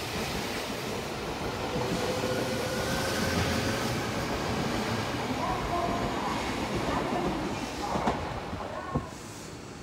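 Odakyu 3000-series electric commuter train pulling out, its cars rolling past with wheel and rail noise and an electric motor whine climbing in pitch as it speeds up. Two short sharp knocks sound about a second apart near the end.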